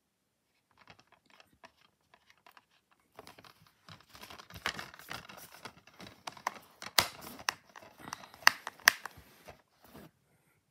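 Clear plastic DVD keep case being handled and closed. Faint clicks come first, then from about three seconds in a run of rustling and rattling plastic, with several sharp clicks in the second half.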